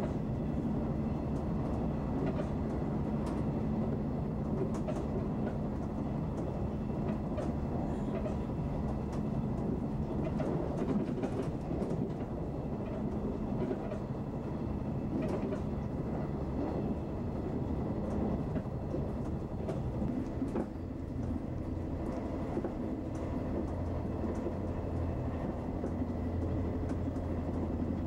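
Running noise heard inside a JNR 381 series electric train car moving at speed: a steady low rumble of wheels on rail with scattered short clicks from the track. The deepest part of the rumble gets heavier about two-thirds of the way in.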